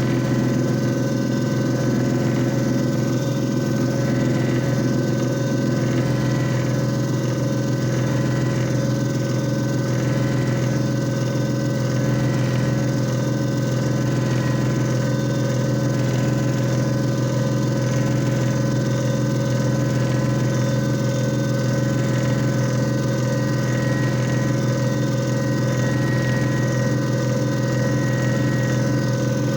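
JFJ Easy Pro disc repair machine running with a steady motor hum that does not change in pitch or level.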